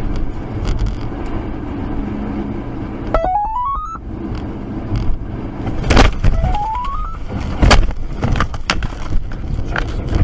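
Two loud bangs about a second and a half apart, followed by a run of small clatters like debris landing on a car. Earlier, and again between the bangs, a stepped electronic tone rises in pitch, over road noise from the car.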